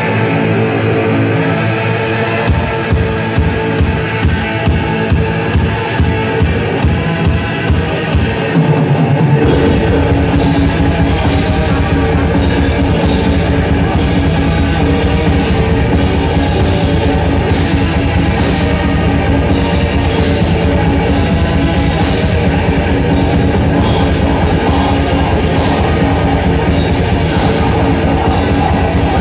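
Live heavy metal band on electric guitar and drum kit: held guitar chords, then drum hits about two a second join in, and about nine seconds in the full band breaks into dense, continuous playing.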